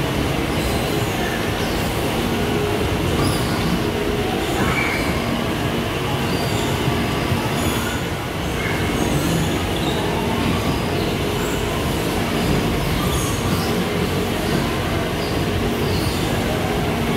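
Steady rumble and rattle of a rail vehicle running on its track, with brief high squeals now and then.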